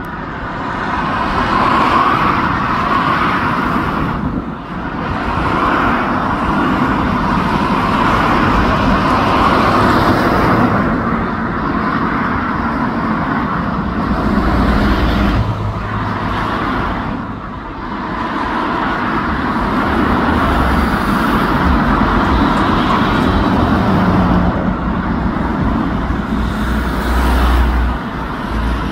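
Loud, steady engine roar that dips briefly twice, with stretches of heavier low rumble about halfway through and near the end.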